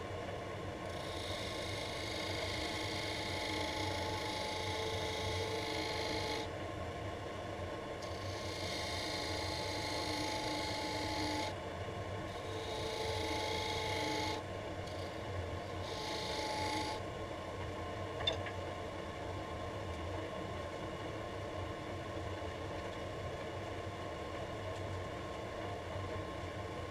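Wood lathe running while a hand-held metal tool is pressed against the spinning laminated-wood brush handle in four scraping passes, each a rasping hiss of wood being cut. Between passes only the lathe's steady running remains, with one sharp click past the middle.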